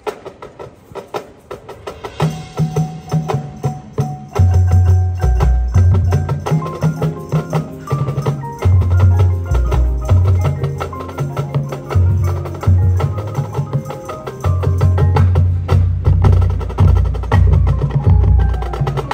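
Marching band music: sharp percussion clicks and mallet percussion, joined about two seconds in by low bass notes that get much louder about four seconds in and continue in a rhythmic pattern.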